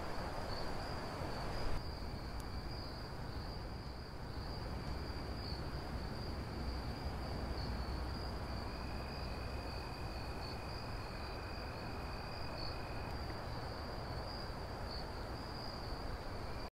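Crickets trilling steadily, a continuous high chirring, with a second, lower insect trill that comes and goes, over a low background rumble. There is one brief click close to two seconds in.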